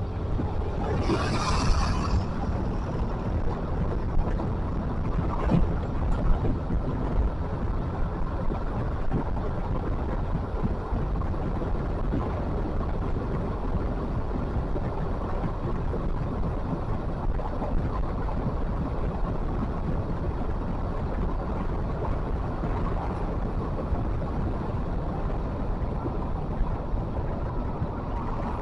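Steady rumble of a moving vehicle, with a brief hiss about a second in.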